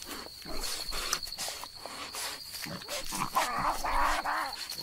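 Tasmanian devils feeding on a carcass: wet crunching and tearing, then a harsh growling snarl from about three seconds in that lasts over a second. A steady cricket trill runs behind.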